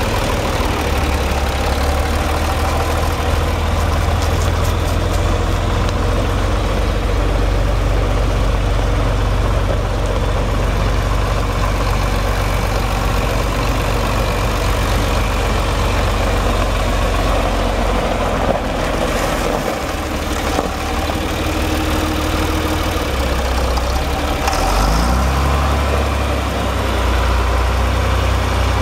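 John Deere 4020's six-cylinder diesel engine running steadily as the tractor drives about. The engine note dips briefly about twenty seconds in, then climbs again a few seconds later.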